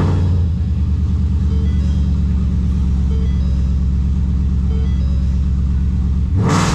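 2015 Ford Mustang's 5.0 L V8 idling steadily just after starting, then revved briefly near the end.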